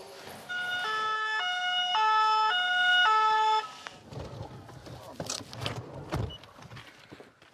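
French two-tone ('pin-pon') emergency siren sounding about six alternating notes, each roughly half a second long, then cutting off about three and a half seconds in. A faint low rumble with a few soft knocks follows.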